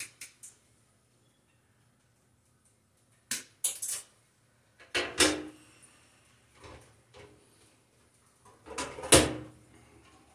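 Handling sounds: a scatter of sharp clicks and clunks from tools and the sheet-metal housing of a bathroom exhaust fan being moved, the loudest about nine seconds in.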